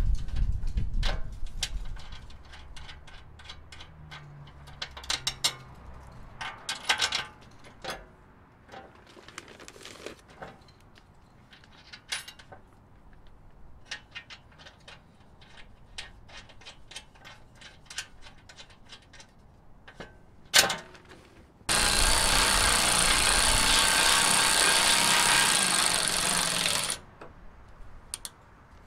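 Scattered light clicks and taps of bolts and metal hardware being handled and hand-threaded at a steel skid-plate bracket, then a sharp knock, then a Milwaukee Fuel cordless ratchet runs steadily for about five seconds, driving a bolt down, and stops.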